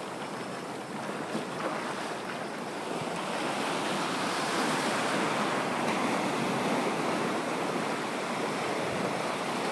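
Ocean surf washing in around the feet with waves breaking, and wind blowing over the microphone: a steady rushing noise.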